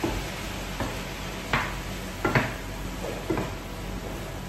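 Chicken, tomatoes, onions and courgettes sizzling together in a pan while being stirred, with a handful of short scrapes and knocks of the utensil against the pan.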